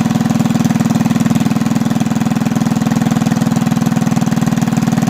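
Predator 212cc single-cylinder four-stroke engine on a stage 1 mini bike idling steadily, loud, with a fast even firing beat.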